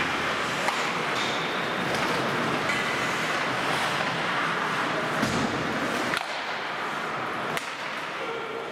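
Ice hockey play on an indoor rink: a steady hiss of skates scraping the ice, broken by several sharp clacks of sticks and puck, the clearest about six and seven and a half seconds in.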